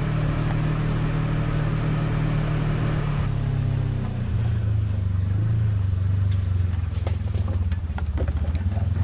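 Off-road vehicle engine running, its revs dropping about three seconds in and then holding low and steady, with scattered knocks and clatter near the end.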